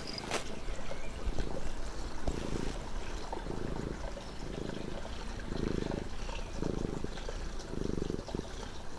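Domestic cat purring right at the microphone, in a steady in-and-out rhythm of about one pulse a second, starting about two seconds in.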